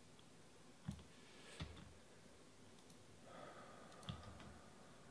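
Three sharp computer mouse clicks, each with a low knock on the desk, about a second in, just before two seconds and about four seconds in, over near silence. A faint breathy hiss comes just after three seconds.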